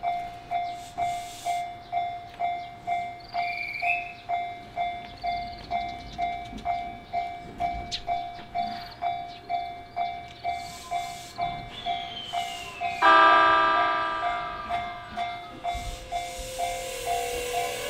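Japanese railway crossing's warning bell ringing steadily at about two strokes a second. About two-thirds of the way in, a Fukushima Kotsu train sounds its horn once, loud and brief, as it approaches. Near the end the train's running noise comes up under the bell.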